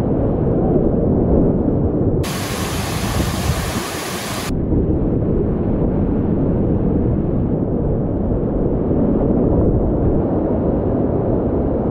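Rushing whitewater of a flooded river rapid and waterfall, a loud, steady, muffled rush of water. From about two to four and a half seconds in it turns brighter and hissier.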